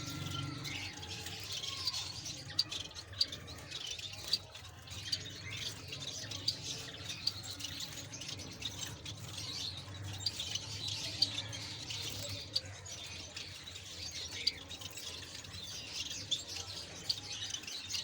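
Pet birds chirping and squawking, with many short, high chirps following one another throughout over a low steady hum.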